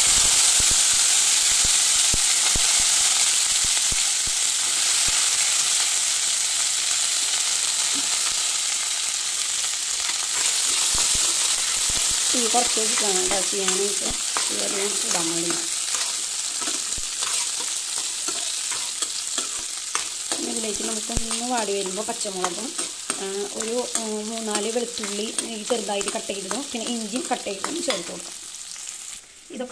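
Coconut bits and whole shallots sizzling in hot coconut oil in a stainless-steel kadai, with a steel spoon scraping and clicking against the pan as they are stirred. The sizzle starts loud at once and eases a little as it goes on.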